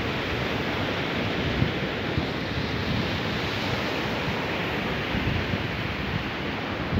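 Dog digging in loose soil with its front paws: a steady scratching of dirt.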